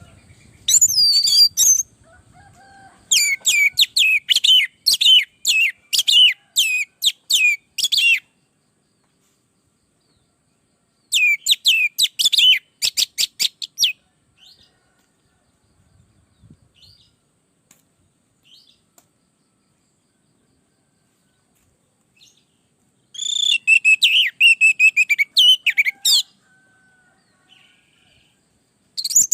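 Orange-headed thrush singing: bursts of rapid, repeated high sweeping whistled notes, each phrase lasting a few seconds, with silent pauses of several seconds between them.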